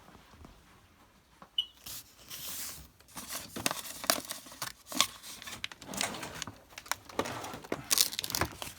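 Hands-on handling noise: irregular crinkling and tearing with scattered clicks and knocks, the loudest tearing bursts about two seconds in and near the end.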